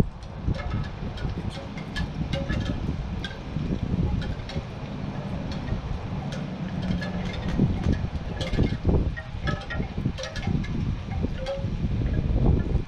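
Wind buffeting the microphone as an uneven low rumble, with many scattered short, high-pitched ticks and chirps throughout.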